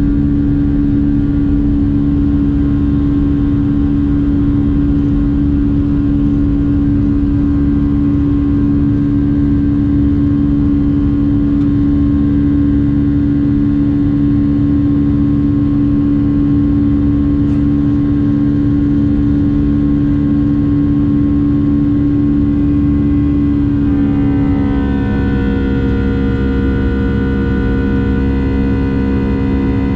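Boeing 757-300 jet engines running, a loud steady drone with a strong low hum. About 24 s in, the pitch shifts: several higher tones slide down slightly and settle, and the level eases a little.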